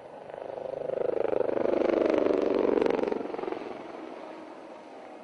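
A formation of HAL Dhruv helicopters flying past in a display: the rotor noise swells from about half a second in, is loudest around two to three seconds with a rapid pulsing beat, then fades away.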